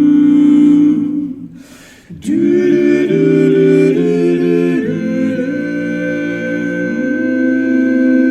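Men's a cappella barbershop voices humming held chords without words. One chord fades out about a second in, a brief gap follows with a click, and a new chord enters around two seconds in, its inner parts moving from chord to chord.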